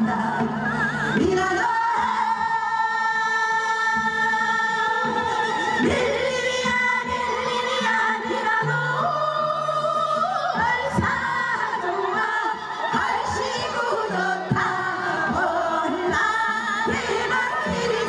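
Women's chorus singing a Gyeonggi minyo (Korean folk song from the Gyeonggi region) in unison through microphones and loudspeakers, with long held notes shaken by vibrato, over an instrumental accompaniment with steady low notes.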